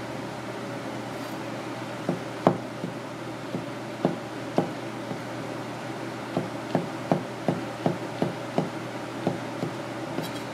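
Chef's knife slicing shiitake mushrooms on a cutting board, the blade knocking on the board with each cut, over a steady background hum. The cuts are scattered at first, then settle into an even run of nearly three a second.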